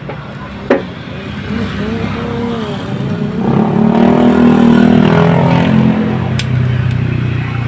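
A motor vehicle engine running, growing louder for a couple of seconds in the middle, with a sharp click just under a second in.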